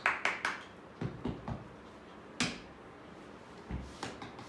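A few quick hand claps near the start, then a few scattered single claps and taps, calling a puppy over.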